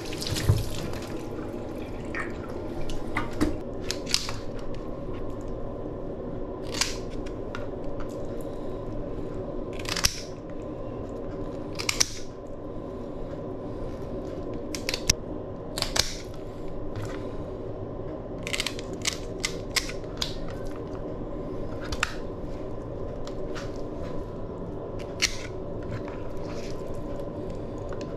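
Tilapia being cut and cleaned by hand: short sharp snips and scrapes every second or two, some in quick runs of three or four, over a steady hum.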